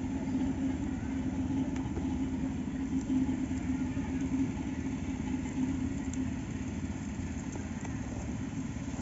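An engine running steadily: a low, even drone that eases off about six and a half seconds in.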